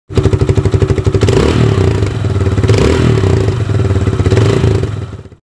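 Sport motorcycle's exhaust blowing through a plastic jug fitted over the silencer tip. The engine runs with a quick, even pulse, is revved up and back down several times, and stops about five seconds in.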